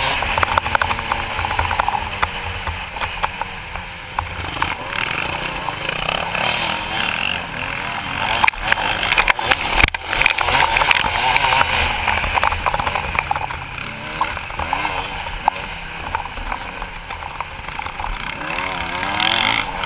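Motocross bike engine revving up and down at race pace, its pitch rising and falling as the rider works the throttle and gears, with a few sharp knocks from the rough track about eight and ten seconds in.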